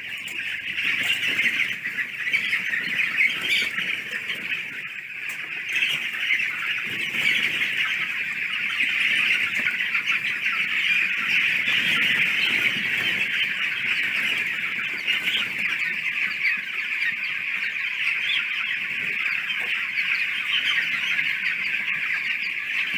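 A large flock of chickens calling all at once in a steady, dense chorus.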